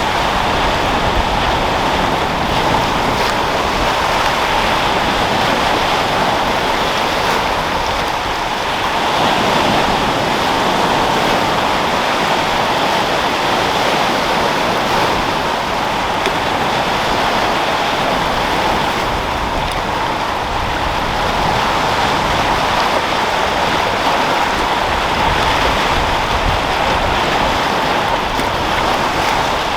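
Sea waves rolling and breaking in a continuous wash of surf that swells and eases, with wind blowing.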